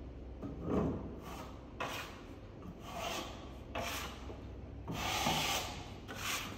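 Steel plastering trowel scraping over plasterboard and wet board-finish plaster in about six separate strokes, as excess plaster is cleaned off the boards beside a freshly filled taper-edge joint.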